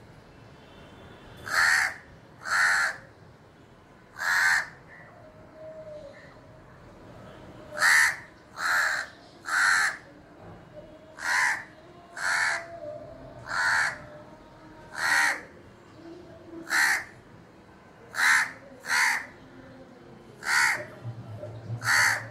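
House crow cawing repeatedly, about fifteen short single caws spaced a second or two apart, some coming in quick pairs or threes.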